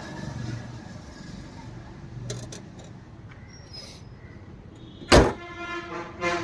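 A low steady hum, then about five seconds in a loud metallic slam with a ringing tail, like a car bonnet being shut, and a smaller knock just after.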